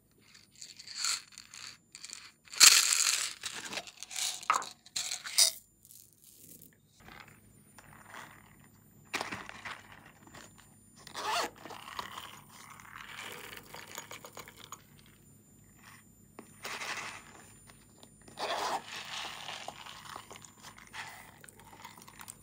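Hands handling a zippered vinyl pouch and small beads: irregular bursts of rustling, crinkling and scraping, loudest a few seconds in, with quieter bouts later.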